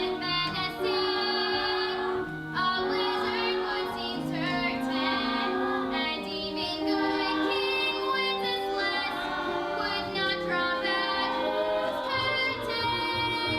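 A song: a high voice singing a melody over musical backing.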